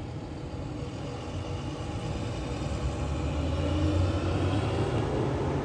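Low, steady rumble of road traffic from the street below, with a motor-vehicle engine hum that swells gradually about halfway through.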